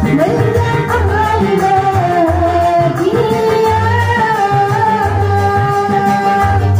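A woman sings a melody into a microphone over amplified backing music, holding long notes and sliding between them, with a pulsing bass underneath.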